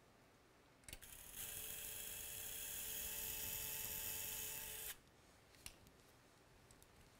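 Small surgical power drill spinning a fine bit through a plate's drill guide into the middle phalanx, drilling the hole for a locking screw. It runs with a steady whine for about three and a half seconds, starting shortly after a click, and cuts off suddenly.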